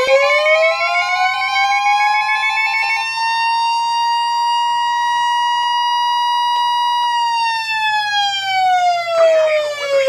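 Weather alert radios going off for a warning. A siren alert winds up in pitch over the first few seconds, holds steady, then winds down from about seven seconds in. A steady high tone, the NOAA Weather Radio warning alarm tone, sounds with it until the siren starts to fall, and a pulsing beep from another receiver stops about three seconds in.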